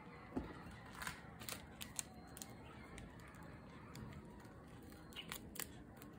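Plastic-wrapped packs of card sleeves being handled: a scatter of short plastic clicks and crinkles, bunched in the first two seconds and again near the end.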